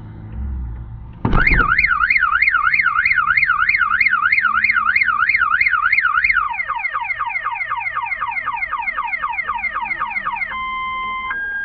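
Electronic car alarm siren going off about a second in, cycling through its tones: a fast up-and-down warble about three times a second, then rapid falling sweeps, then near the end a slow two-tone high-low alternation.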